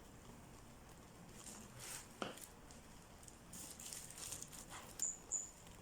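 Faint rustling as a handbag is handled, with a sharp click about two seconds in and two brief high clicks near the end.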